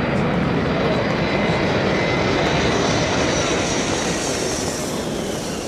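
Steady, loud rushing aircraft-engine noise with a faint high whine slowly rising, easing off near the end.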